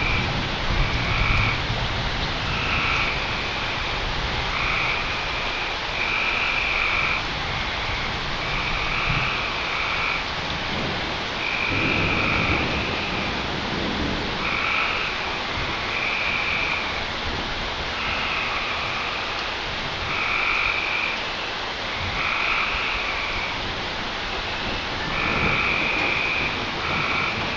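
Steady rain with frogs calling over it again and again, short high trills each under a second long, and a low rumble of thunder about twelve seconds in.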